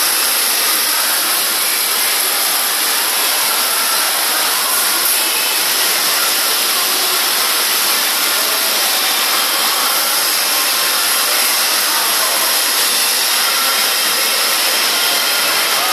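Heavy rain on a factory roof, a steady loud hiss, with rainwater streaming down through the leaking roof onto the floor.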